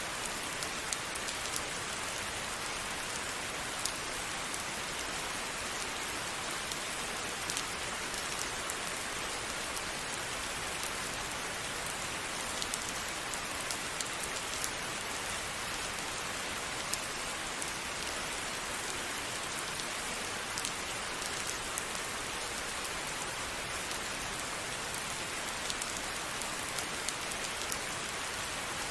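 Steady rain falling, an even hiss with many small drops ticking sharply on a surface all through.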